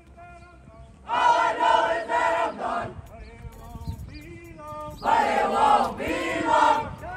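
A platoon of marching cadets chanting a cadence together in two loud bursts, with a quieter single voice calling between them, in a call-and-response.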